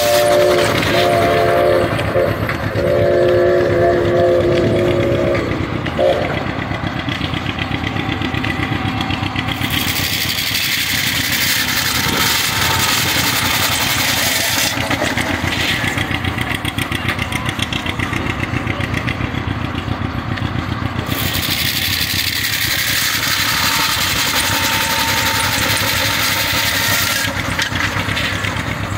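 Belt-driven shingle mill saw powered by a Woods Brothers steam engine, running with a steady rhythmic beat. It cuts through wood blocks with a loud hiss twice, about ten and about twenty-one seconds in, each cut lasting about five or six seconds. Over the first six seconds a steam whistle blows a chord of several tones in a few blasts, the third one the longest.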